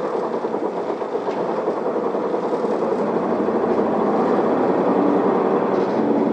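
Isuzu Erga city bus's diesel engine pulling away and accelerating, heard from inside the passenger cabin. The engine grows steadily louder over the first few seconds, then holds.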